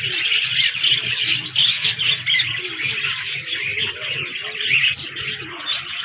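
Many caged cockatiels, with budgerigars among them, chirping and chattering all at once in a continuous, overlapping chorus.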